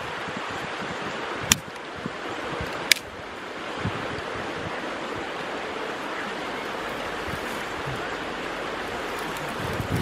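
Steady rush of a flowing river, with two sharp clicks about a second and a half and three seconds in.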